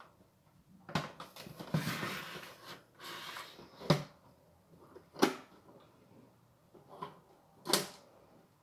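Handling of a small plastic USB air cooler and its packaging: rustling in the first half, with four separate sharp knocks and clicks of plastic parts.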